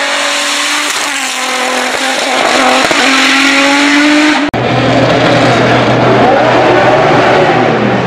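Turbocharged 3.2-litre VR6 racing engine of a SEAT León hillclimb car at high revs, its note holding a steady high pitch. It breaks off abruptly about halfway and gives way to a rougher, noisier engine sound as the car runs further off.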